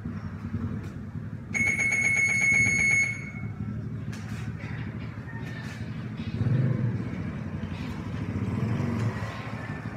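Steady low rumble of motor vehicle engines. A single high buzzing tone, like a buzzer or horn, is held for about a second and a half starting about one and a half seconds in.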